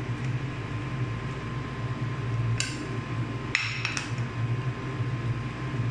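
Metal spoon stirring mung bean soup in an aluminium pot, clinking against the pot's side once about two and a half seconds in and a couple more times about a second later, over a steady low hum.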